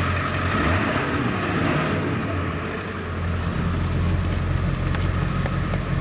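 Ford F-350's 7.3 Power Stroke turbo-diesel V8 running as the truck drives slowly, a steady low drone that eases slightly about halfway through. The owner judges that it doesn't sound bad.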